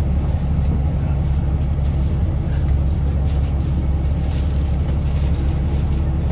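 A bus engine running with a steady low drone, heard from on board the bus.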